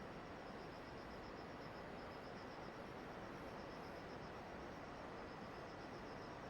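Insects chirping in fast, repeating high-pitched pulse trains over a faint steady hiss.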